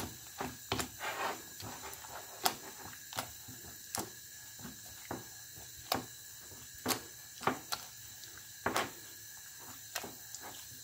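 Plastic potato masher mashing canned red kidney beans in a glass bowl: irregular light knocks of the masher against the glass, roughly one a second, with soft mashing between.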